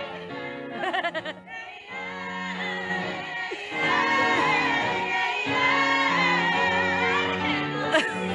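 Music with singing: several voices holding long notes in harmony, with a short dip about a second and a half in and a change of chord around the middle.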